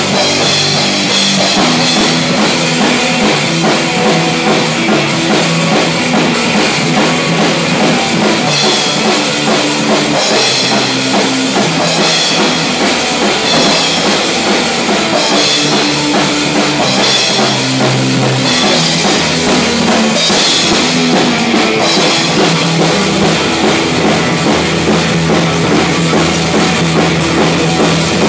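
Loud live rock from a robot band: a robot-played drum kit with bass drum and cymbals, a robot-fretted bass guitar and an electric guitar, playing continuously.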